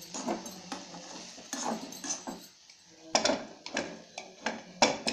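Metal cookware being handled: a string of clinks and scrapes of metal on metal, with a short lull about halfway through and the sharpest clink near the end.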